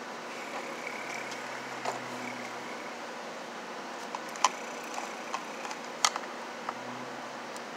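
A few short, sharp clicks and taps, the loudest about four and a half and six seconds in, from electrical wires being handled and pushed against a plastic electrical box. Steady background hiss lies under them.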